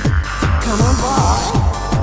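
Electronic dance music with a steady, fast kick-drum beat and synth lines.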